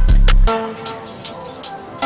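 Electronic background music. The heavy bass and drums drop out about half a second in, leaving lighter synth notes over regular hi-hat ticks.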